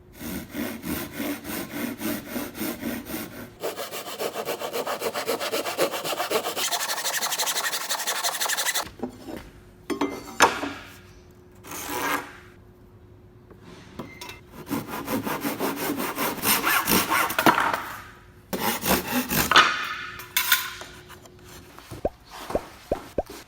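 Hand saw cutting through wood with rhythmic back-and-forth strokes. It runs steadily for about nine seconds, then in shorter bouts with pauses between them.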